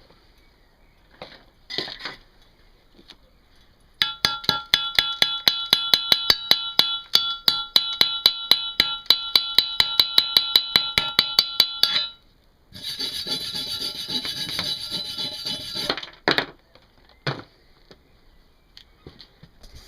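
Rapid light hammer taps on steel, about five a second for some eight seconds, each strike ringing with a metallic tone: slag being chipped off a freshly laid stick weld. Then a few seconds of steady scraping, as a wire brush scrubs the bead, and a couple of knocks.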